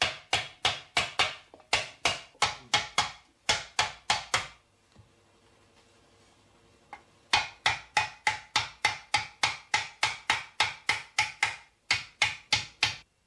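Hand hammer striking a sterling silver disc on a stake, dishing it into a plate shape. Sharp, ringing strikes come about three a second, pause for about three seconds in the middle, then resume at the same pace.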